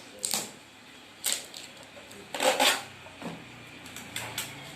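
Packing material being handled by hand: a few short rustles and rattles, the loudest about two and a half seconds in.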